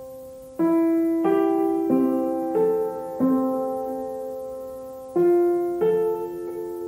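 Background piano music: slow notes and chords struck about every two-thirds of a second, each ringing and fading, with one longer held pause near the middle.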